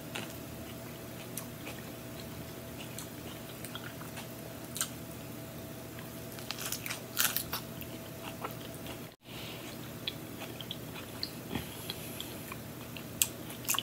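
Crisp lettuce-leaf wrap of chicken salad being bitten and chewed close to the microphone: scattered crunches and mouth clicks, the loudest a cluster of crunching bites about seven seconds in.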